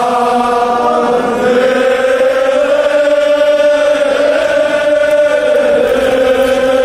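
Men's voices chanting a Kashmiri marsiya, a Shia mourning elegy, in long drawn-out notes. The pitch steps up about a second and a half in and falls back near the end.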